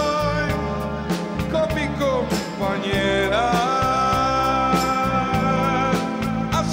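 Live rock band playing: drum kit, electric guitar and keyboards, with a held lead melody that slides up and down between notes.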